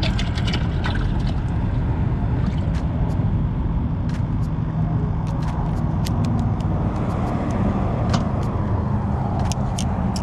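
Steady low rumble, with many light clicks and taps from hands handling a bait bucket and fishing tackle.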